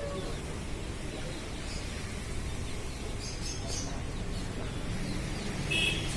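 Steady hiss of aquarium aeration, air bubbling through the tank water, with a few short bird chirps a little past the middle and a brief higher call near the end.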